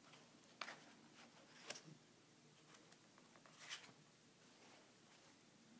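Pages of a large comic-strip book being turned by hand: three brief, faint paper rustles over quiet room tone.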